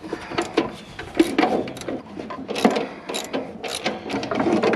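Hand ratchet wrench clicking in short irregular strokes while unbolting a toolbox.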